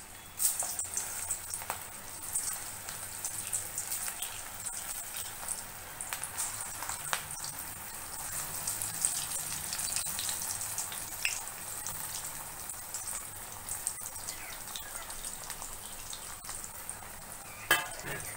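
Potato and black chickpea tikkis sizzling and crackling in hot oil during shallow frying, with fresh bursts of sizzle as more patties are dropped in. A sharp click near the end.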